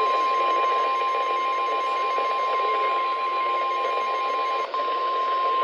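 NOAA Weather Radio warning alarm tone: one steady high-pitched tone of about 1050 Hz over radio receiver hiss, with a brief dropout near the end. The tone is the signal that a warning broadcast follows.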